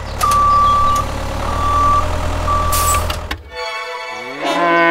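A vehicle engine rumbling while a reversing alarm beeps three times. About three and a half seconds in the engine cuts off and a cow moos, the call falling in pitch at its end.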